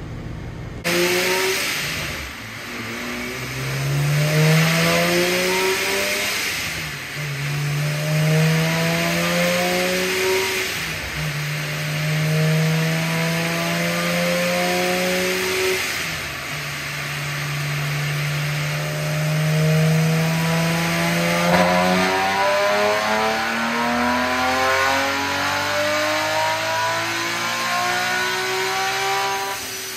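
Nissan 370Z Nismo's 3.7-litre VQ37VHR V6, fitted with a Vortech centrifugal supercharger, making a full-throttle pull on a chassis dyno. The engine note climbs in several steps, dropping back at each shift, then winds down about two-thirds of the way through.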